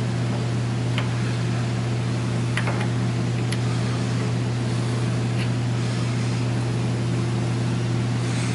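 A steady low hum throughout, with a few faint metallic clicks as a steel T-nut is handled and slid by hand into the T-slot of a lathe's compound slide.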